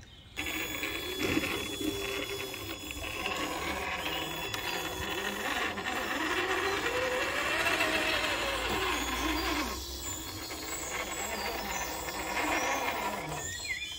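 Small electric winch motor whining steadily as the Traxxas Pro Scale winch reels in its line, dragging the TRX-4 crawler up over tree roots. The pitch rises and falls in the middle as the load changes.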